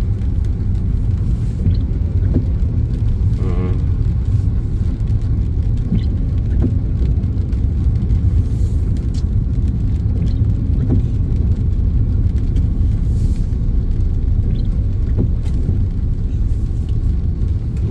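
Steady low rumble of a car's engine and tyres heard from inside the cabin as it rolls slowly in heavy traffic, with a few faint clicks.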